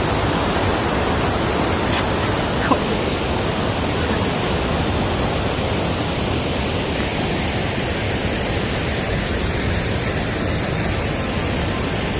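Steady, loud rush of a waterfall, with a small click about three seconds in.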